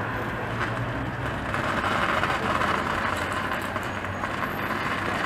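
Articulated city bus passing close by, its engine and road noise swelling from about a second and a half in, over steady street traffic.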